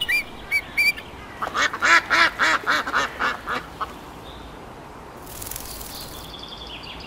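A few short rising bird chirps, then white domestic geese honking in a quick run of calls lasting about two seconds. A brief hiss follows near the end.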